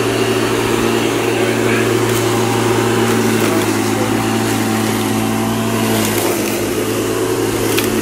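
Corded electric rotary lawn mower running steadily as it cuts long grass, its motor note dropping slightly about six seconds in.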